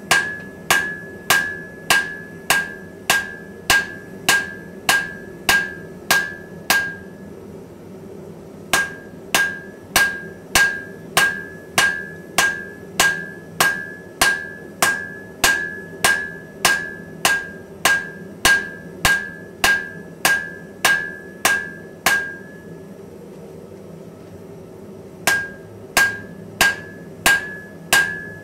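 Hammer blows on a glowing Damascus steel billet on an anvil, about two strikes a second, each with a bright ring from the anvil, as the stacked billets are forge-welded into one piece. The hammering stops twice for a second or two, about a quarter of the way in and again about three-quarters in, over a steady low hum.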